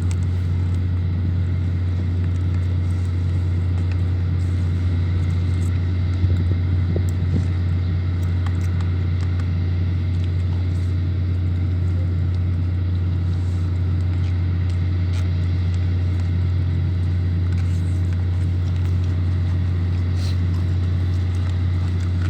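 A steady, loud low mechanical hum that does not change, with a few faint clicks over it.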